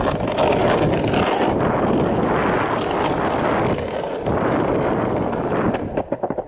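Longboard wheels rolling over pavement: a steady rough rumble, broken by a few clicks and knocks near the end.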